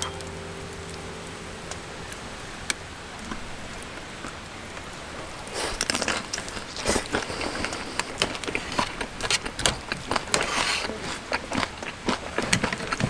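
Steady rain hiss, joined a little over five seconds in by a dense run of irregular crackles and rustles.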